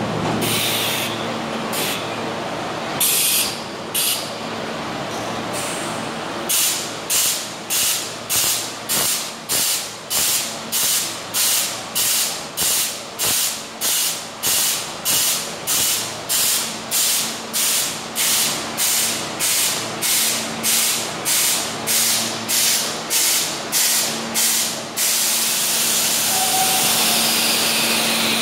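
Compressed air hissing from the air system of a vintage New York City subway train standing at the platform: a few irregular puffs, then a steady rhythm of short hisses nearly two a second, giving way near the end to a continuous hiss. A steady low hum runs underneath.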